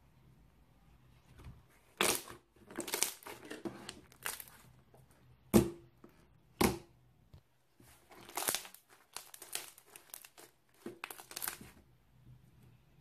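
Thick, clicky, crunchy kiwi slime being squished and pressed by hand, giving irregular bursts of crackling pops with short pauses between.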